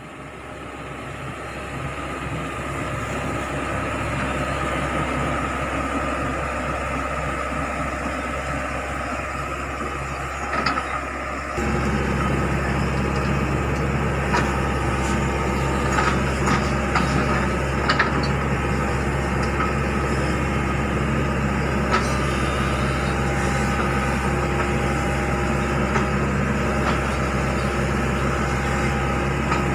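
Hitachi Zaxis 110 excavator's diesel engine running steadily while the machine stands still. About twelve seconds in, the running grows louder, and a few light clicks come over it.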